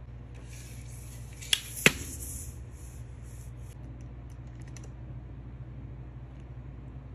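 Plastic piping bag crinkling and rustling in the hand as it is squeezed to pipe icing, with two sharp clicks about a second and a half in, over a steady low hum.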